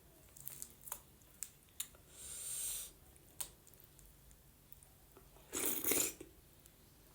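Close-miked eating: a person chewing soft corn-flour dhido, with scattered mouth clicks and smacks. A soft hiss comes about two seconds in, and a louder noisy burst about six seconds in.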